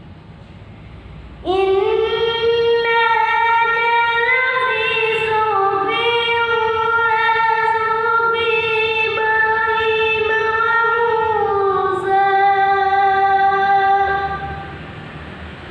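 A boy's solo voice in melodic Quran recitation (tilawah): after a short pause he sings one long, held phrase with slow ornamented turns in pitch, which fades out near the end.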